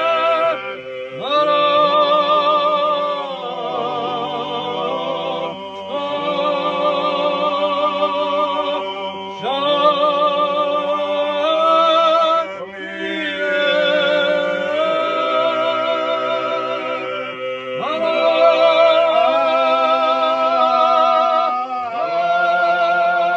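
Unaccompanied men's voices singing Georgian polyphony: a low held drone under a higher lead voice with a quavering, ornamented line. The song goes in phrases of a few seconds each, broken by short breaths.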